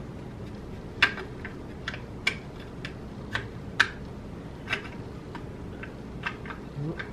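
Sharp metal clicks from a Draco NAK-9 9mm AK-pattern pistol being handled as its parts are fitted back in, about a dozen irregular clicks, the loudest about a second in and near four seconds.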